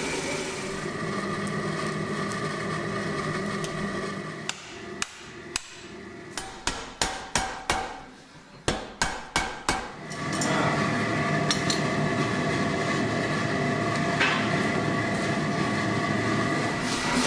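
Hand hammer blows on hot steel at the anvil: a run of about a dozen sharp strikes, roughly three a second, each ringing briefly, with a short pause partway through. Before and after the strikes, a steady noise with a hum.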